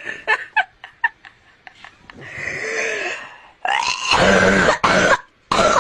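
Coughing and hacking: a string of short clicks, a softer hoarse breath, then loud raspy coughs about two-thirds of the way in, the longest lasting about a second, and one short cough near the end.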